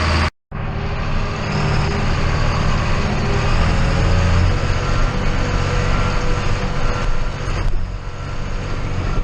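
Large farm diesel engine running steadily under load, a low hum with broad machine noise. The sound cuts out completely for a moment just after the start, then resumes.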